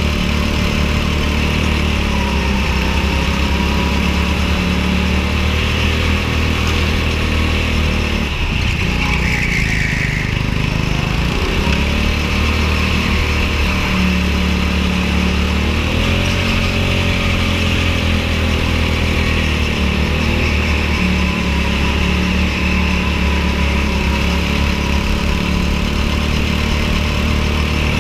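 Go-kart engine running continuously while lapping a track. Its pitch dips for a few seconds about a third of the way in, then climbs back up and holds.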